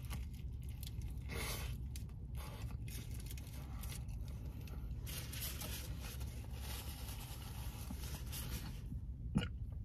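Rustling and scraping of food packaging over a steady low rumble inside a parked car's cabin, with a single click near the end.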